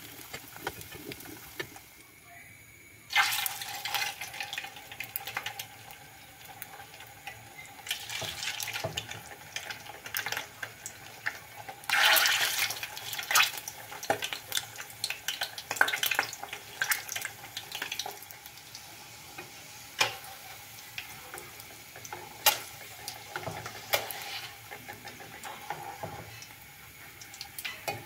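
Hot oil sizzling and crackling in a frying pan as whole peeled boiled eggs fry, with sharp clicks and pops now and then. The sizzle jumps up suddenly about three seconds in and swells into a louder crackle about twelve seconds in.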